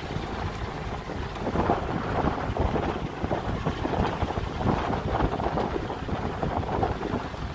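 Wind buffeting the microphone, with the low rumble of a vehicle running underneath.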